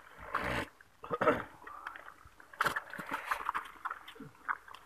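Wet mesh fishing net being hauled and bunched up by hand, with sloshing and dripping water and irregular rustles and clicks. Brief snatches of voices come in between.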